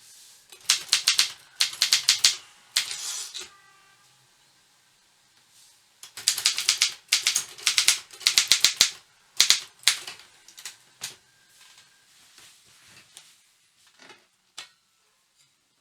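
Optima Elite 3 manual portable typewriter being typed on: fast runs of key strikes with a longer rasping sweep about three seconds in, then slower single strikes thinning out toward the end.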